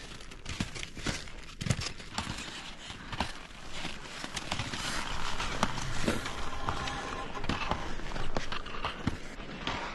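Skis and poles working uphill on snow during a ski-touring climb: irregular crunching and scraping with sharp knocks from pole plants and ski strides.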